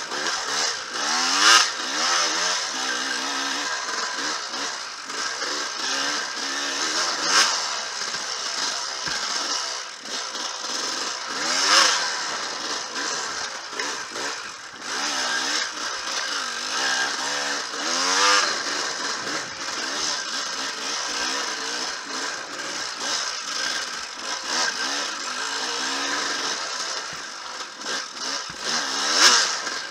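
Enduro dirt bike engine revving up and down as it is ridden over rough singletrack, with several short, louder surges of throttle, the biggest about a second and a half in and near the end.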